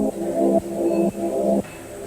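Background music: three held, low-pitched notes of about half a second each, then a brief pause near the end.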